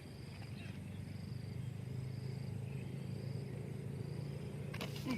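Faint outdoor ambience: a steady low hum with insects chirping in short, high, repeated bursts, and a brief sharp click near the end.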